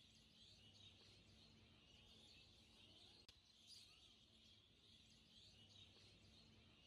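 Near silence, with faint small bird chirps in the background and a faint low hum.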